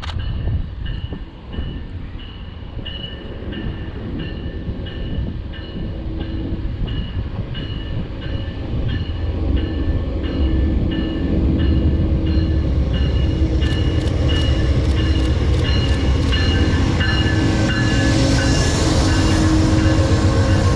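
Amtrak diesel passenger locomotive approaching and pulling in alongside: its low rumble grows steadily louder from about halfway through, with sharp wheel clicks on the rails near the end. A bell dings steadily about twice a second underneath.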